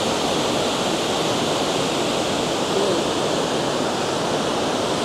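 Water pouring over a dam spillway: a loud, steady rushing that does not change.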